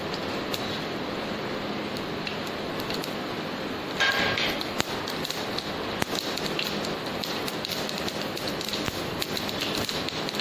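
Seeds sizzling and crackling in hot oil in a frying pan, with a louder burst of sizzle about four seconds in.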